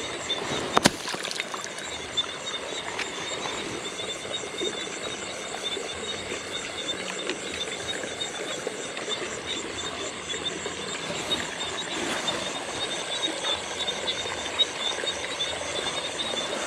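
Night chorus of frogs and insects in a rice paddy: a steady, high, finely pulsing trill. Over it the camera is handled against clothing, with rustling and one sharp knock about a second in.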